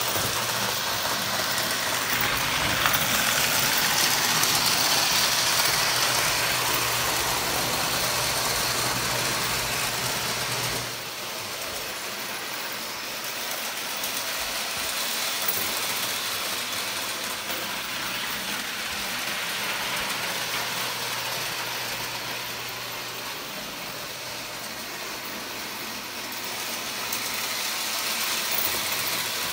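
Lionel O-gauge toy trains running on three-rail track: a steady rolling rumble and motor whir with a low hum, dropping in level about eleven seconds in and rising again near the end.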